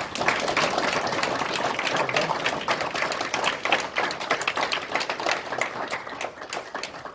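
Audience applauding, a dense patter of many hands clapping that thins out toward the end.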